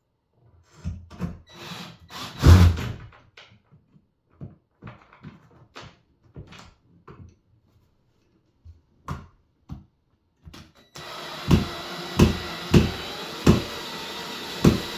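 Screws of a door handle set being fitted. For the first few seconds there are clicks and knocks of the metal parts being handled, the loudest about two and a half seconds in. From about eleven seconds a small power driver runs steadily, with regular knocks about every two-thirds of a second.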